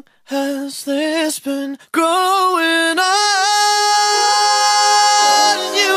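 A pop song's backing drops out and a lone voice sings unaccompanied: a few short notes with vibrato, then a long held note.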